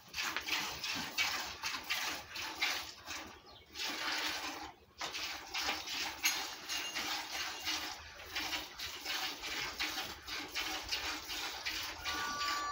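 Cow being milked by hand into a plastic bucket: milk squirting from the teats into the pail in a steady rhythm of hissing spurts, about two a second, with short breaks about four and five seconds in.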